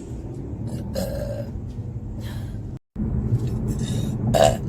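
A woman burping twice: a short burp about a second in and a louder one near the end, over a low steady rumble.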